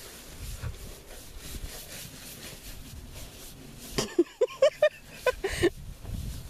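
Rustling in tall grass, then, after a click about four seconds in, a quick run of about eight short, high squeaks lasting a second and a half.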